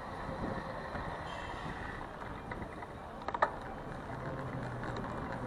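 City street traffic noise heard from a moving bicycle: a steady rumble with a brief cluster of clicks a little past halfway and a low steady engine hum coming in near the end.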